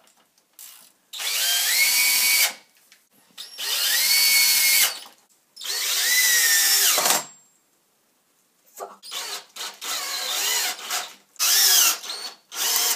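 Cordless drill driving screws through metal angle brackets into a wooden beam: three long runs of the motor, each rising in pitch as it spins up and dropping as it stops, then a quicker string of short trigger bursts in the second half.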